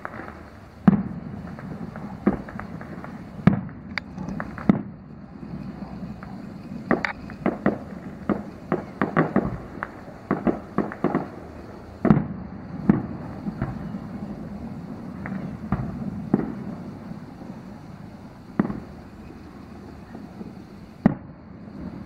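Aerial fireworks bursting about a mile off: an irregular string of bangs and pops over a continuous low rumble, with a quick run of reports about seven to eleven seconds in.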